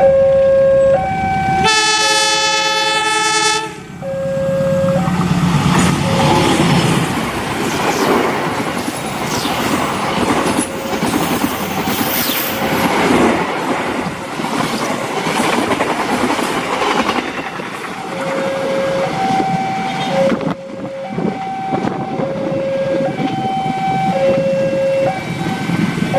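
A two-tone level-crossing warning alarm alternates steadily. About two seconds in, a locomotive horn cuts through it with one blast of about two seconds. A train then passes at speed, its wheels clattering on the rails for about fifteen seconds, and the two-tone alarm is heard again near the end.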